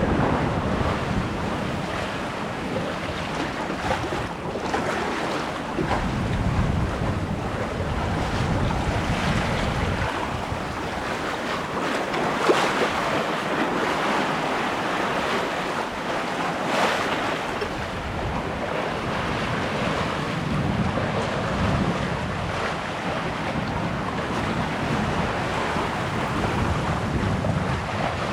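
Water washing past a sailboat under way on open water, with wind buffeting the microphone in uneven gusts.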